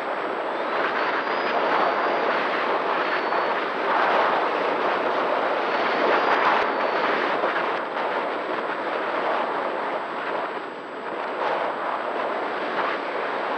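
Electric RC flying wing (Horizon Hobby Opterra) in flight: a loud rush of air and propeller noise, with a faint steady motor tone underneath. The rush swells and eases as the plane manoeuvres, dipping briefly near the end.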